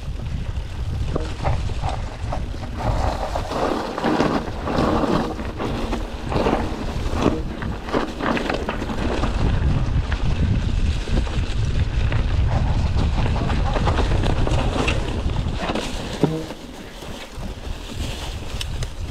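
Wind buffeting the microphone of a chest-mounted camera during a mountain bike ride, a steady low rumble, with repeated knocks and rattles of the bike over rough trail. A sharp knock about three-quarters of the way through, after which the rumble eases.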